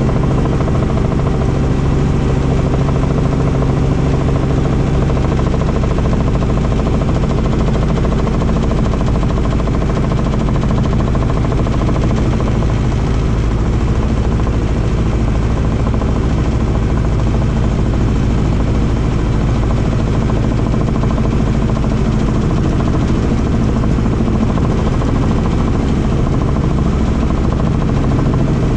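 Helicopter's engine and rotor running steadily, a loud, even drone with low humming tones that barely change.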